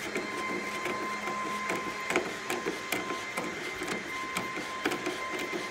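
Socket ratchet with a Phillips bit clicking in irregular runs as it backs out the screws of a truck-bed tie-down. A faint steady high tone runs underneath.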